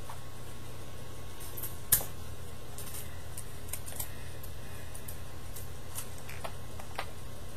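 Printer paper handled and folded by hand: scattered light crackles and taps, with one sharper click about two seconds in, over a steady low hum.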